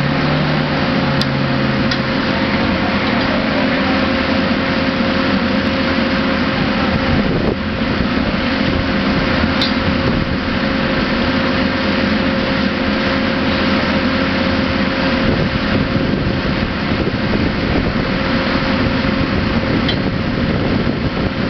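Holland rail flash-butt welding truck's engine and power unit running steadily, with a constant hum over it.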